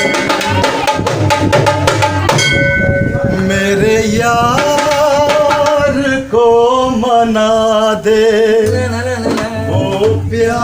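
Live Indian folk devotional music: a dholak hand drum plays a fast run of strokes for about the first two seconds, then drops back as held notes and a wavering melody line take over.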